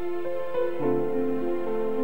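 Slow instrumental background music of long held notes, the chord changing about a quarter of a second in and again just under a second in.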